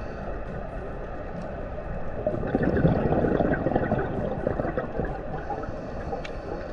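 Underwater sound of a scuba diver breathing out through the regulator: a steady underwater hiss, then a louder burst of bubbling about two seconds in that fades after a couple of seconds.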